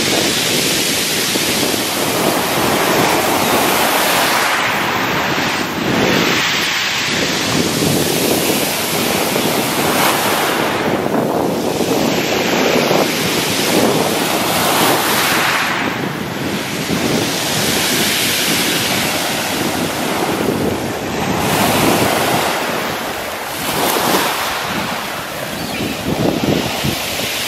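Small sea waves breaking and washing over a pebble beach, the surf noise swelling and easing every few seconds, with wind rumbling on the microphone.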